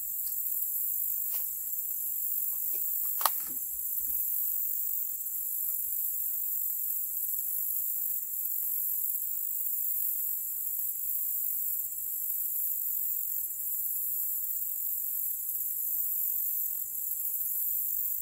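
Steady, high-pitched chorus of insects such as crickets, unbroken throughout. A few sharp clicks in the first few seconds, the loudest about three seconds in.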